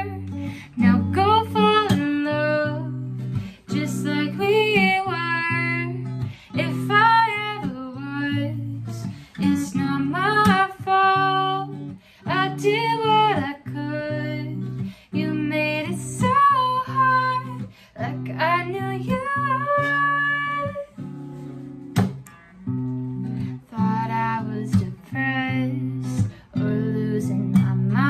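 A woman singing a slow melody over her own strummed acoustic guitar, with short breaths between sung phrases.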